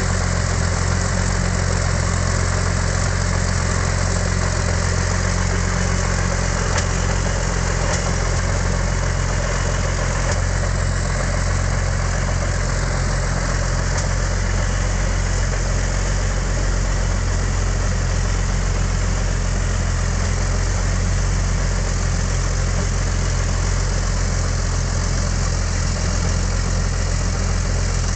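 Rolls-Royce Merlin III V12 aero engine of a Hawker Sea Hurricane running steadily on a ground run, the propeller turning.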